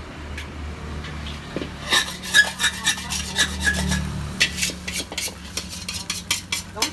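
Metal scraper scraping and knocking around the inside of a thin aluminium frying pan in quick repeated strokes, with a brief metallic ring, working the burnt bits out of the pan. The strokes start about two seconds in.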